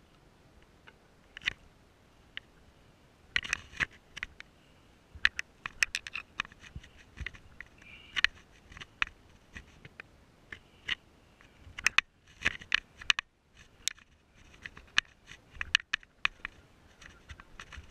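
Irregular sharp scratches and clicks close to the microphone, coming in clusters with short quiet gaps between them.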